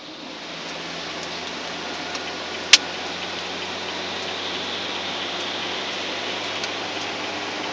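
Road noise heard from inside a vehicle's cab on a wet road: a steady low engine hum under an even tyre hiss. One sharp click sounds about two and a half seconds in.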